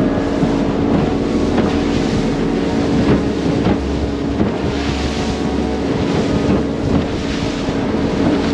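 Outboard motor of a small open boat running steadily at speed, a constant hum under wind buffeting the microphone and water rushing past the hull, the rush swelling about halfway through.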